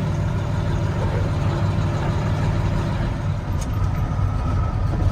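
A heavy farm vehicle's engine running steadily at an even speed.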